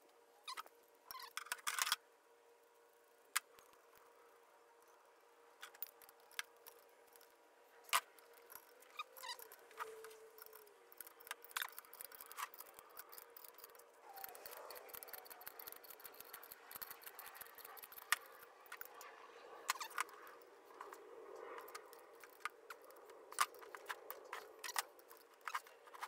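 Hand tools clinking and clanking against a Volkswagen 1600 engine case during disassembly: scattered sharp metallic clicks and knocks, uneven in timing, some louder than others.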